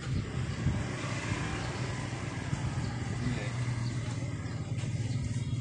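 A motor vehicle engine running close by: a steady low hum under a broad rushing noise that holds without a break.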